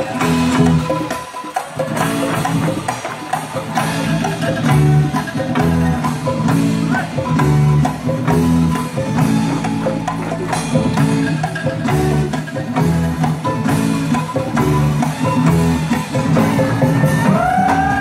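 Traditional Indonesian ensemble music with angklung and drums, played live through a stage PA: tuned notes repeating in a steady rhythm over drum strokes, with a short rising tone near the end.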